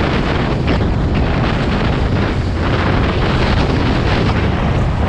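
Loud, steady wind buffeting on the microphone of a Honda dirt bike being ridden along a dirt trail, with the bike's engine running underneath.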